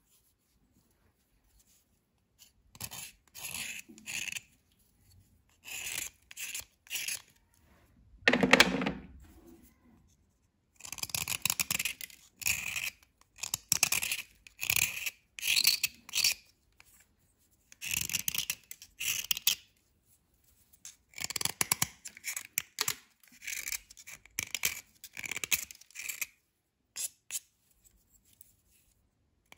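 Small knife blade shaving and scraping a dry white bar, in short gritty strokes that come in bursts with brief pauses. One louder, fuller crunch sounds about eight seconds in.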